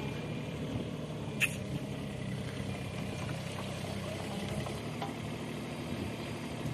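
Mini excavator's engine running steadily at idle, with one short sharp click about a second and a half in.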